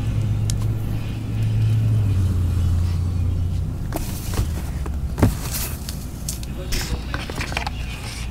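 Sealed cardboard case of card boxes being handled and turned over by gloved hands: scattered knocks and scuffs, with one sharper knock about five seconds in, over a low steady hum.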